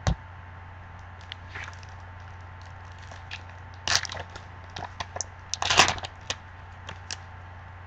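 A foil trading-card pack torn open and its wrapper crinkled in gloved hands: scattered sharp crackles, loudest about four seconds in and again around six seconds. A short knock right at the start.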